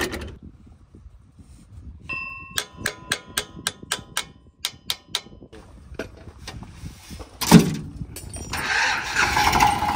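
Metal spanners and tools clinking on the stalled Eicher 242 tractor's engine: a ringing clang about two seconds in, then a run of quick metallic taps and clicks. One louder knock comes about seven and a half seconds in, and a hiss rises near the end.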